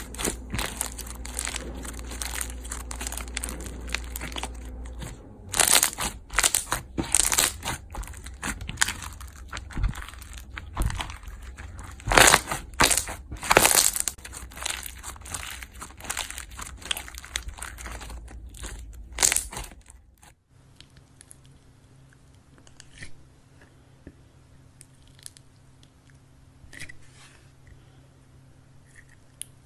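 Hands squeezing and pressing thick white slime, which crackles and pops with many sharp clicks. About two-thirds of the way through, the sound drops to faint, sparse sticky clicks as a clear jelly slime is handled.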